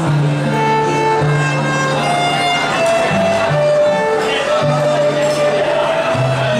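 A violin playing a slow melody of long held notes over an accompaniment with low sustained bass notes.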